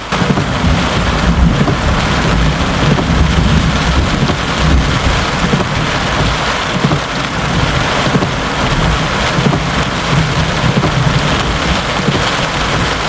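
Heavy rain falling steadily, with a low, rolling rumble of thunder from a lightning strike about 3.5 kilometres away.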